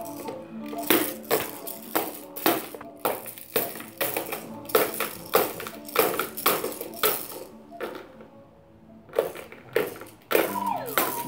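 A baby's plastic bead rattle shaken and knocked in quick, irregular clatters, over background music.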